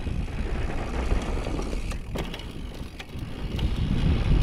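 Downhill mountain bike rolling fast over a dirt trail: a steady rumble of wind on the microphone and tyres on the dirt, with a few sharp clicks and rattles from the bike about two and three seconds in.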